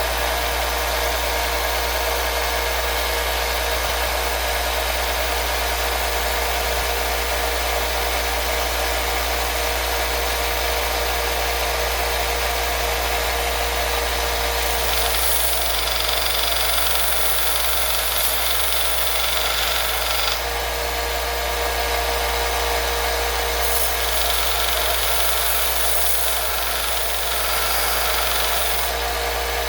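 A power tool running steadily in a workshop, with a higher, harsher cutting or grinding sound joining about fifteen seconds in and again near the end.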